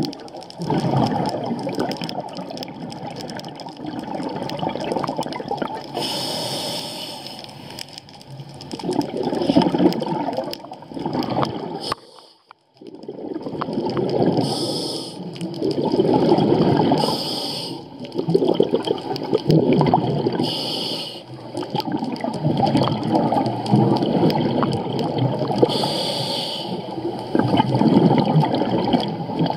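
Scuba regulator breathing underwater: a short hissing inhale every few seconds, each followed by a long bubbling exhale. There is a brief pause in the bubbling about halfway through.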